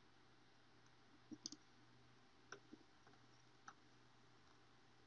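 Faint computer mouse button clicks over near-silent room tone: a quick pair about a second and a half in, then three single clicks over the next two seconds.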